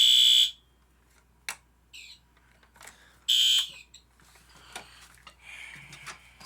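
Fire alarm horn, set to code 3 at low volume, sounding in half-second blasts: one right at the start and another about three seconds in. A few sharp clicks come in between.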